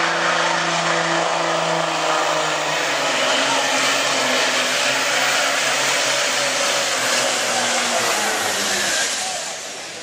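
Turbocharged International Harvester pulling tractor's diesel engine running loud at full throttle as it drags the weight-transfer sled. Its pitch sinks steadily as the sled bogs it down, and the engine falls away near the end as the pull stops.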